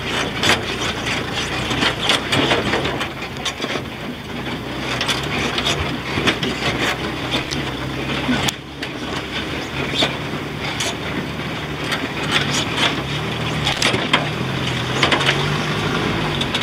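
Pickup truck running slowly over a rough dirt road, its engine note wavering slightly, with frequent knocks and rattles from the truck and its load over the bumps.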